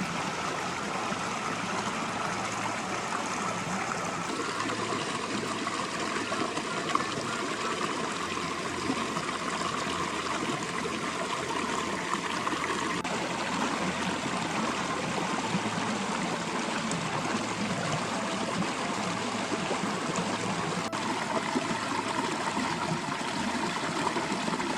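Stream water flowing steadily, an even rushing noise.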